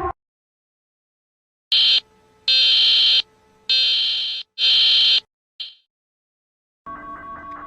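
Four loud, high-pitched electronic alarm beeps of about half a second each, followed by a short fading blip, in the manner of an emergency alert or fire alarm tone. A musical tune starts near the end.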